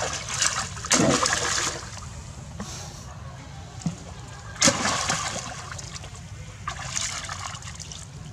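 Water splashing as a baby macaque thrashes and swims in a shallow muddy pond: a loud bout of splashing near the start, another about halfway through and a shorter one near the end.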